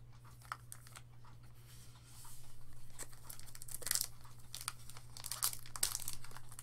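Foil wrapper of a Magic: The Gathering booster pack being torn open and crinkled by hand, starting about two seconds in, with sharp crackling peaks as the foil gives.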